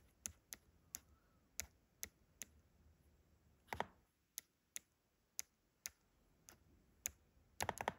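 A stylus tapping keys on the on-screen keyboard of a Holley EFI 3.5-inch handheld touchscreen: a string of sharp, light clicks, irregularly spaced at two or three a second, with a quick run of taps near the end.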